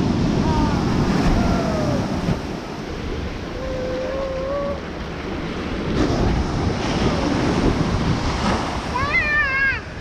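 Small ocean waves breaking and washing up the sand in a steady rush of surf. A few faint gliding voice-like calls sound over it, and a shrill wavering call comes near the end.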